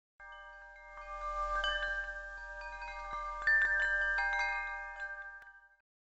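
Chime tones struck one after another, each ringing on and overlapping the others, over a low hum. A brighter strike about three and a half seconds in is the loudest, and the chiming fades away just before the end.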